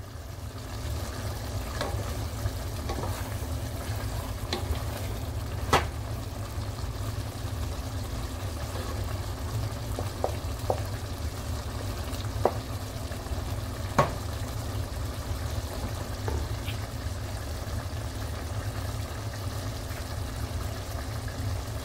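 Catfish stew simmering and bubbling in a steel pot: a steady sizzling hiss broken by a few sharp pops, the loudest about six, twelve and fourteen seconds in.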